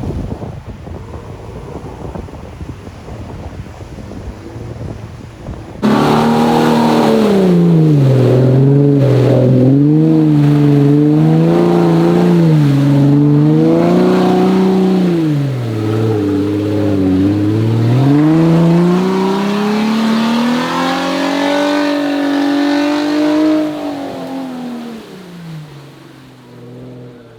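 A 4x4's engine revving hard under load, its pitch rising and falling again and again. It comes in abruptly and loud about six seconds in after a quieter stretch of lower engine noise, then dies away near the end.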